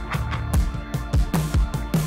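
Background music with a steady beat of deep kick-drum hits about twice a second.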